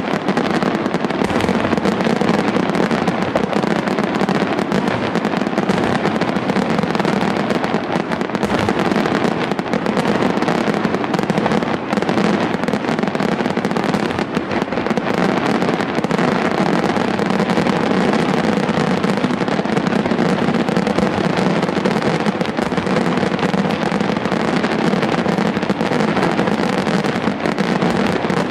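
Aerial fireworks bursting in a dense, unbroken barrage. Many reports a second run together with crackling, and the level stays steady throughout with no pause.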